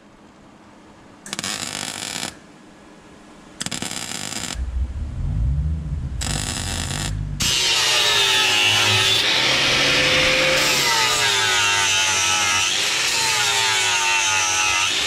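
Three short bursts of MIG welding, about a second each, on the steel of a car's rear wheel well. From about halfway through, an angle grinder grinds the welds continuously, its pitch wavering as the disc bites into the steel.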